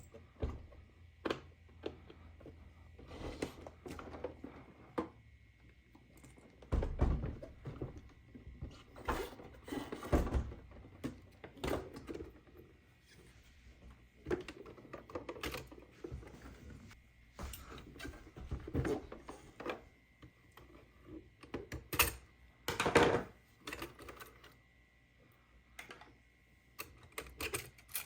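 Irregular clicks, taps and knocks of a plastic toy claw crane game being handled and played, some louder clusters among lighter tapping, with a faint steady high-pitched tone throughout.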